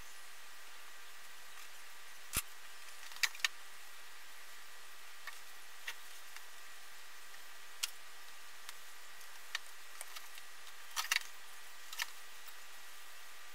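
Irregular small clicks and taps of hands handling wires and small parts on a table, about a dozen in all and loudest near the start and again near the end, over a steady faint hiss.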